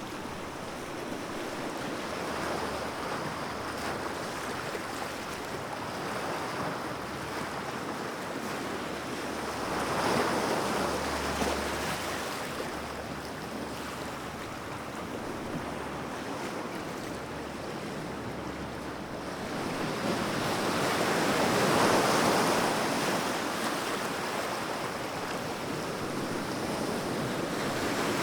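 Ocean waves breaking and washing on the shore as a continuous rush. It swells and eases, with the biggest surges about ten seconds in and again a little past twenty seconds.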